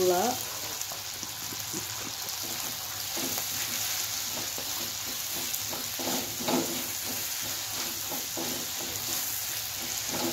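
Chopped shallots, garlic, chilli and tomato sizzling in a hot metal wok while a spatula stirs and scrapes them around the pan. A steady sizzle runs under repeated scraping strokes, one louder about six and a half seconds in.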